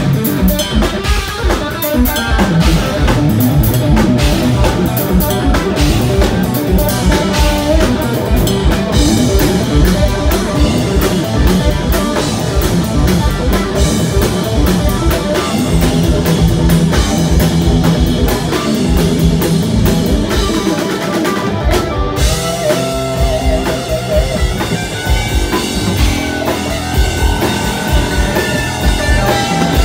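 A rock power trio playing live and loud: a Telecaster-style electric guitar over bass guitar and a drum kit with steady kick drum and cymbals. A little past twenty seconds in the band briefly drops back, then the guitar carries on with long held and bending notes.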